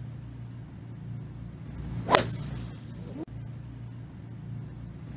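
Golf club striking a ball off the tee: a single sharp crack about two seconds in, over a steady low background hum.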